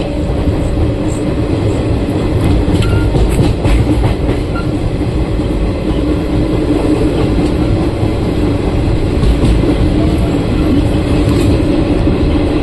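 Garib Rath Special Express train running on the rails as it slowly gathers speed, heard from the open coach doorway. Wheels rumble and clatter over the track continuously, with a steady low hum underneath.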